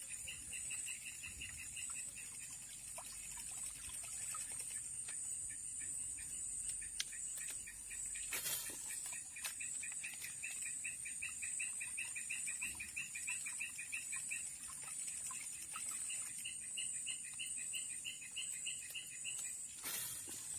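Swamp insects droning steadily at a high pitch, with runs of rapid chirps lower down, about five a second, lasting several seconds each. There are two short sharp knocks, one about eight seconds in and one near the end.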